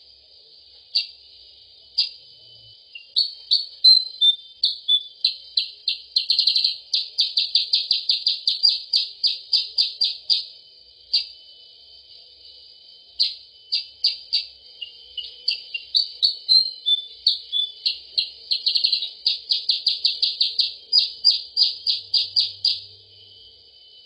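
Black-headed bulbul calling: runs of short, high repeated notes, about four a second, broken by pauses of a second or two, over a steady high hiss.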